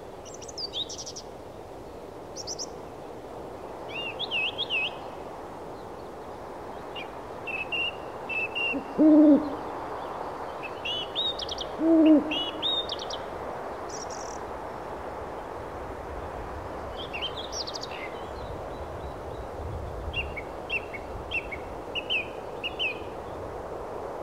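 An owl hooting twice, about nine and twelve seconds in, each hoot short and dropping at the end. Small birds chirp on and off over a steady rushing background.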